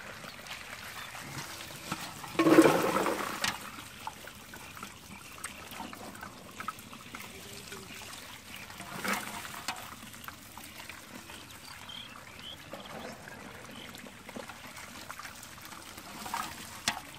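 Muddy water trickling and splashing as hands scoop small fish out of a shallow dammed channel, with one much louder burst of noise about two and a half seconds in and a few sharp splashes later.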